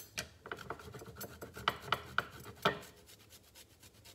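Ginger root being grated on a handheld metal rasp grater: quick rasping strokes, about four a second, growing softer near the end.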